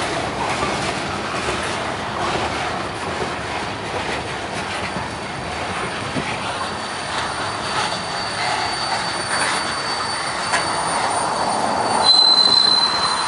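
Freight train cars rolling past close by, wheels rumbling and clattering over the rails. A thin high wheel squeal runs through it and grows louder near the end.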